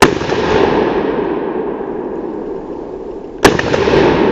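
Two shotgun shots about three and a half seconds apart, each loud and sudden, with a long echo rolling away through the woods after it.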